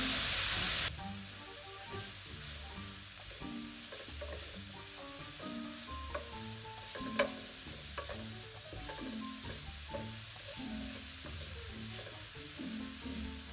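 Grated carrots and spices sizzling in oil in a frying pan while being stirred with a wooden spatula. A loud hiss in the first second drops off suddenly to a quieter, steady fry, with one sharp tap about seven seconds in.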